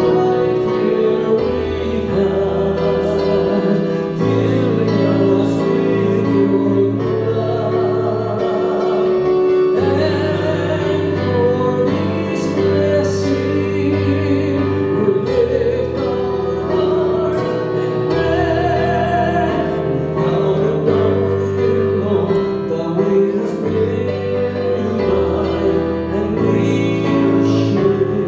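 Worship music: singing over instruments, with sustained bass notes that change every second or two.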